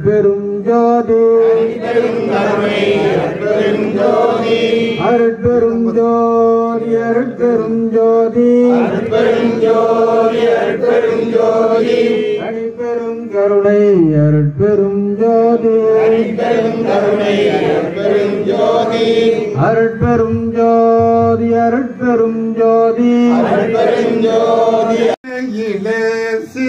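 A man chanting a Tamil devotional hymn through a megaphone-style microphone, in long held notes with short breaks for breath.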